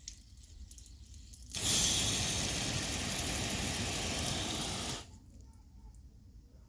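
Gardena Comfort adjustable garden hose spray nozzle spraying water with a steady hiss, which starts suddenly about a second and a half in and cuts off about three seconds later.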